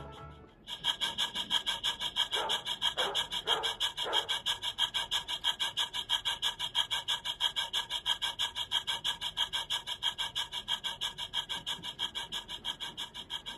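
Model steam locomotive's sound unit chuffing steadily, about five chuffs a second, as it pulls its train, growing fainter near the end. Four short, lower sounds about half a second apart come in two to four seconds in.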